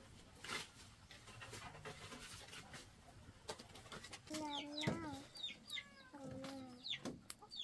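Chickens calling: a few faint knocks, then from about halfway through two or three drawn-out calls that waver in pitch.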